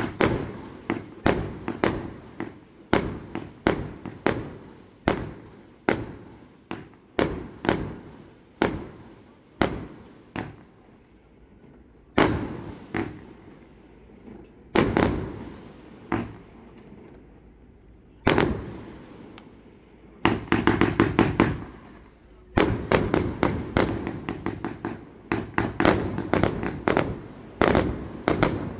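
Fireworks going off: sharp bangs of aerial shots bursting about twice a second, then a lull with only a few single bangs, then a dense, rapid volley of crackling bangs near the end.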